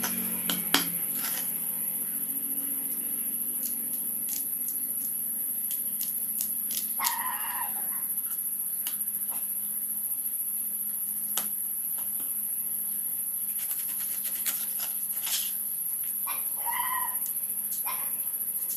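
Knife knocks and taps on a wooden cutting board while snakehead (murrel) fish is cut into pieces, the sharpest knock under a second in. A pet gives short whining calls about seven seconds in and again later, over a steady high-pitched whine.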